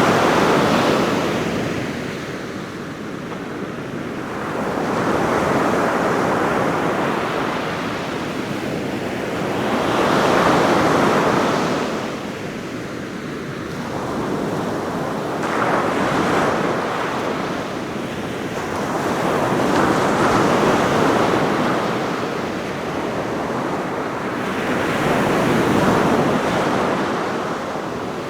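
Ocean surf breaking on a beach: a continuous rushing wash of calm but powerful waves that swells and eases about every five seconds.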